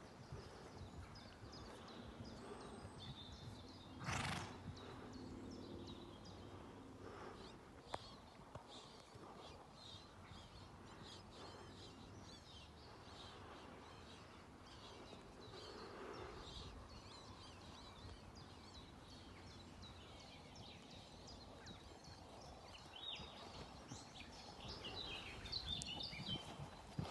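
Faint outdoor ambience of a horse working on a sand arena, with small birds chirping throughout. A brief loud rush of noise comes about four seconds in, and the horse's hoofbeats on the sand grow louder near the end as it comes close.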